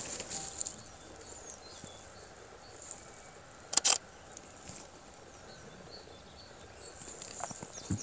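Quiet rural field ambience with faint, short high chirps, broken about four seconds in by two quick loud clicks close together.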